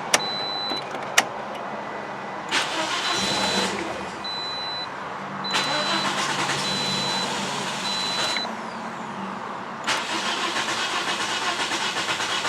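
2009 Toyota Corolla 1.8-litre four-cylinder engine turned over by the starter in three runs with the fuel pump disabled, so it cranks without starting. The cranking sound is not right, which the mechanic takes as a sign of bad compression. Two sharp clicks come near the start, and a short electronic beep repeats during the middle run.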